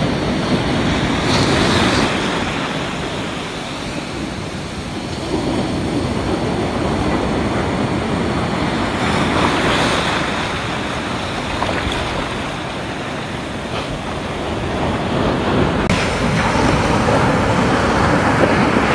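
Ocean surf washing through shallow, foamy water, the rush swelling and easing, with a wave breaking close by near the end.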